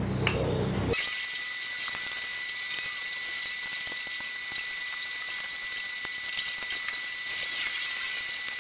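A fork tapping and scraping faintly against a glass bowl of melted chocolate as dates are dipped, with many small light clicks over a steady hiss and a thin, steady high whine.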